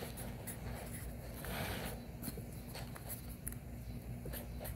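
Sharpie felt-tip marker writing on the paper wrapper of a rockwool cube: faint scratchy strokes with small handling clicks, a slightly louder stretch of scratching about a second and a half in.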